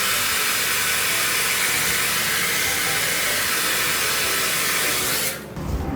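Hair dryer blowing while drying the bangs, a steady rushing hiss that cuts off near the end.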